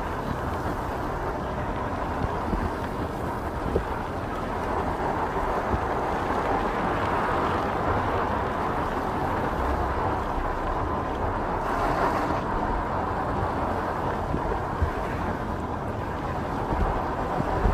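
Steady road and engine noise of a car driving slowly, heard from inside its cabin, with a low rumble throughout.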